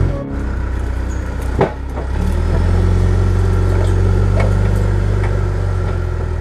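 Backhoe loader's diesel engine running under load as its front bucket pushes soil back into a dug hole, with a sharp knock about one and a half seconds in and the engine growing louder soon after.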